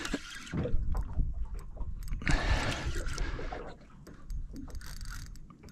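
Water lapping and sloshing against the side of a small boat, with a steady low rumble and a few faint ticks; the hissing swell is strongest a little after two seconds in.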